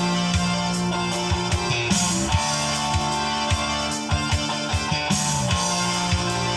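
Instrumental intro of a mid-1980s Cantonese rock song: a band with bass guitar, guitar and drum kit playing a steady beat, with the bass note changing every second or two and no vocals yet.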